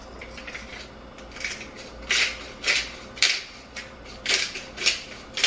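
Hand-twisted pepper grinder grinding peppercorns: a series of short, gritty crunching strokes, about two a second, starting about two seconds in.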